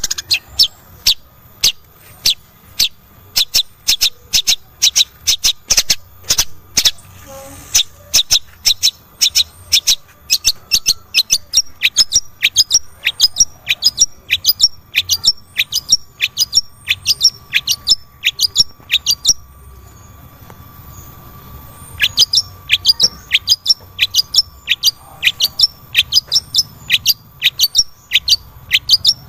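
Long-tailed shrike (cendet) giving a fast, repeated run of short, sharp falling calls, about two to three a second, the 'miyik' call that keepers play to set a silent cendet calling. The calls break off for about two seconds a little past the middle, then resume.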